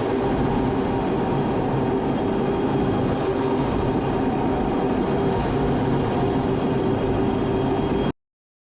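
Steady, loud mechanical drone of vehicle or engine noise, with a few held hum tones and no rhythm; it cuts off abruptly about eight seconds in.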